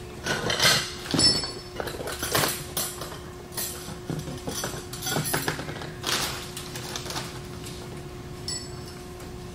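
Steel clutch plates and small transmission parts being handled and sorted: an irregular string of light metallic clinks and knocks, a few with a short ringing tone, busiest in the first few seconds, over a faint steady hum.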